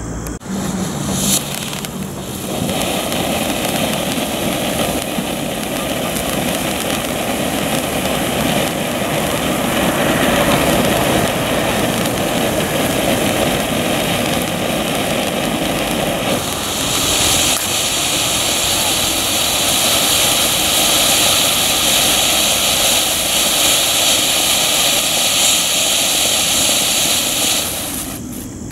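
A 200-gram cone fountain firework burning: a short spit about a second in, then a steady rushing hiss of sparks. The hiss turns higher and brighter about two-thirds of the way through and dies away near the end.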